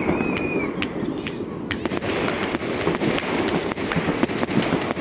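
Many fireworks going off at once: a dense run of crackles and sharp bangs, with a few whistling fireworks in the first second and a half.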